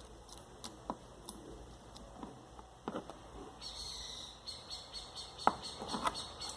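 Homemade glue slime being squeezed and worked by hand, giving scattered wet clicks and short squelches, the loudest about five and a half seconds in.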